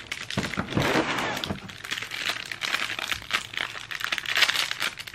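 Plastic wrapping crinkling and rustling as a small wrapped item from a cardboard advent calendar is handled and unwrapped, in uneven spurts.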